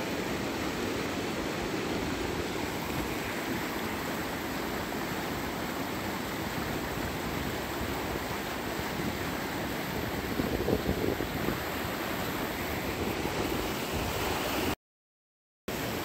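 River water rushing through rapids: a steady churning whitewater noise, which cuts out completely for under a second near the end.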